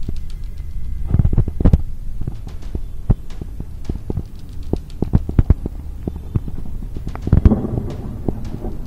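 Thunder rumbling low and continuous, with frequent short crackles. It swells louder about a second in and again about seven and a half seconds in.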